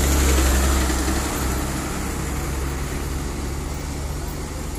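Diesel engine of a loaded sugarcane truck passing close, a deep steady engine note loudest in the first second or so and then slowly fading as it moves away, over the rumble of more trucks and tyre noise on the road.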